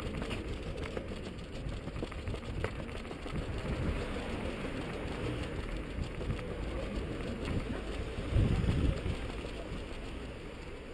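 Wind rumble and jostling on a camera carried by a running person, with footsteps on pavement and street traffic behind. A louder rumbling surge comes about eight seconds in.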